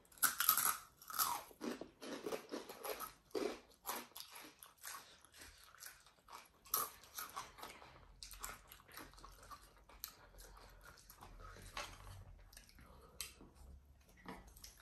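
Two people biting and chewing Takis rolled tortilla chips close to the microphone: loud crunching bites in the first few seconds, then quieter, scattered chewing crunches.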